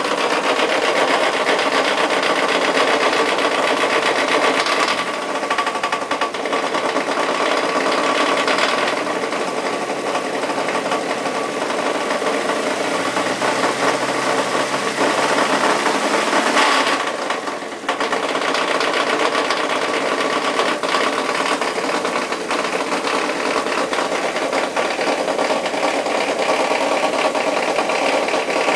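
Mazda Miata four-cylinder engine running with a hard, fast, continuous knock, which dips briefly about two-thirds of the way through. The knock set in after the engine ran for a second at full throttle with its throttle held open, on its first start with fresh oil after sitting eight months.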